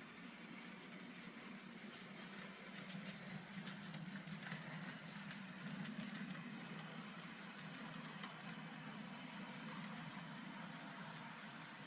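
N gauge model locomotive running on the layout track: a faint, steady motor hum with light clicking from the wheels on the rails, loudest around the middle.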